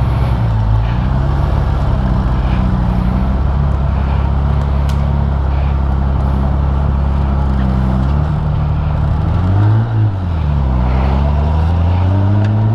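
Honda Gold Wing GL1500's flat-six engine running steadily, its note dipping and then rising again about ten seconds in.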